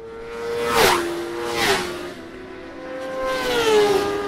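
Racing motorcycle engine sound effect. The held engine note drops in pitch twice with a quick rush of noise, about one and two seconds in, then rises and falls away again near the end, like a machine going past.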